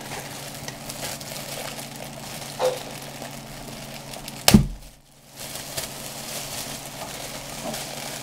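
Hands unpacking a coaxial car speaker from its box: light rustling and handling, a small knock, and one sharp knock about halfway through, over a steady low hum.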